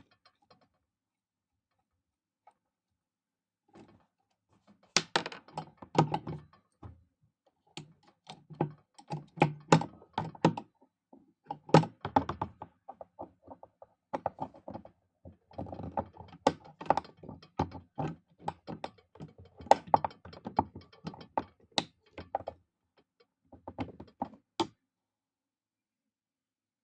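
Hand tools and loose metal parts clicking and knocking against a vintage Pfaff industrial shoe sewing machine as it is taken apart. The quick taps come in irregular clusters with short pauses, starting about four seconds in.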